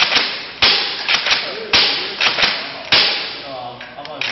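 Nerf foam-dart blaster fired four times about a second apart, each sharp snap followed by a couple of light plastic clacks as the pump is worked back and forth to prime the next shot.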